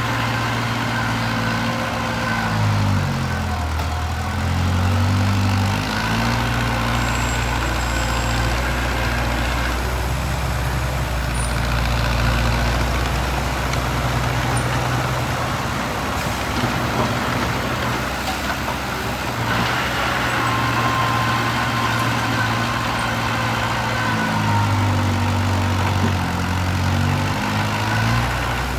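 Heavy diesel engine of construction machinery or a truck running, its pitch stepping up and down twice as the engine speed changes.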